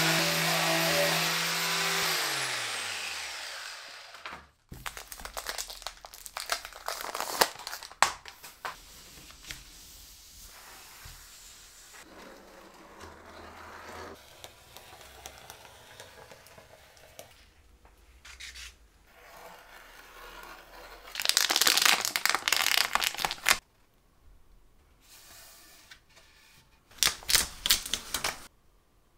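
An electric detail sander runs, then spins down over about two seconds with its pitch falling. After it, quieter handling of a sheet of synthetic leather: rubbing, crinkling and light scraping, with two louder spells of rustling near the end.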